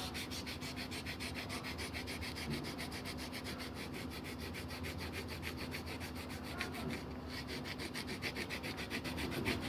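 Rapid, even back-and-forth scrubbing strokes on a circuit board, about six a second, easing briefly about seven seconds in, with a faint steady hum underneath.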